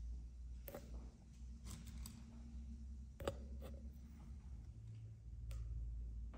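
Faint, scattered clicks and taps of thin wooden skewers being pushed one by one into a raw whole chicken, about five in all, over a low steady rumble.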